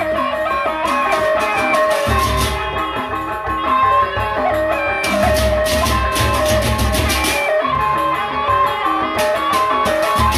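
Sasak gendang beleq ensemble playing live: large two-headed barrel drums beating low underneath, bronze gamelan metallophones carrying a steady melody, and small hand cymbals clashing in fast bursts, strongest about halfway through and again near the end.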